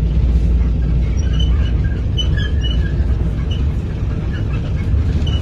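Steady low rumble of a moving vehicle heard from inside the cabin: engine and road noise, with faint brief high tones scattered over it.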